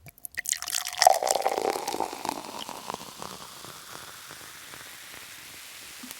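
Water splashing at first, with many sharp drips and spatters, then settling into a steady even rush of flowing water.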